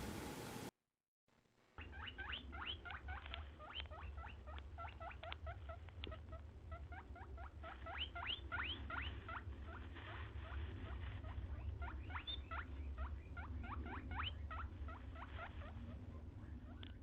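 A small animal squeaking: a long run of short, high squeaks that each sweep quickly upward, coming several per second in uneven runs over a low steady hum, starting just under two seconds in after a brief gap.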